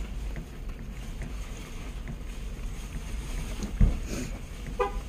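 Steady low rumble inside a parked truck's cabin, with a single sharp thump about four seconds in and a brief pitched sound near the end.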